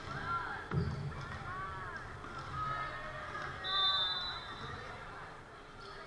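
Indoor volleyball gym: a referee's whistle blown once near the middle, a single steady blast of about a second, over scattered players' and spectators' voices, with a thud of the ball about a second in.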